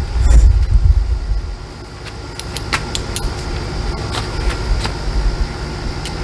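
Scattered light metal clicks and clinks of a wrench and socket ratchet working the bolts of a stern mount anchor bracket, over a low rumble that is strongest in the first second and a half.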